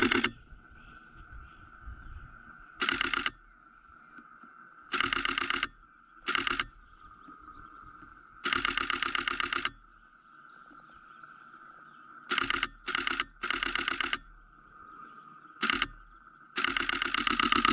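Camera shutter firing in rapid bursts of continuous shooting: about nine bursts of fast, even clicks, some a fraction of a second, others over a second long, with the longest burst near the end.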